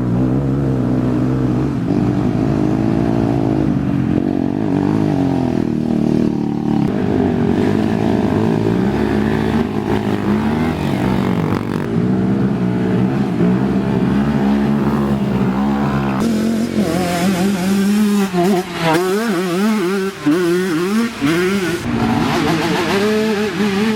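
ATV race engines revving up and down as the quads accelerate and shift, the pitch rising and falling over and over. About sixteen seconds in, the sound changes: the deep low end drops out and a higher, more wavering engine pitch takes over.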